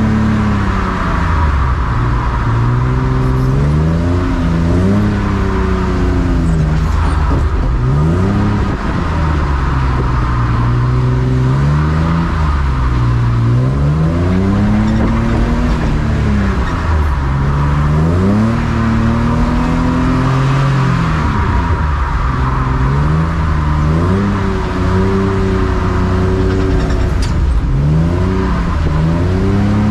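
Car engine revving hard again and again: its pitch climbs over a second or two, then falls back sharply, time after time, as the car accelerates and lifts off or shifts. A steady hiss of road and wind noise runs underneath.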